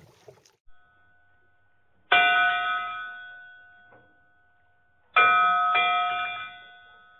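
Two ringing bell-like chime strikes, about two seconds and five seconds in, each starting suddenly and fading away over about two seconds.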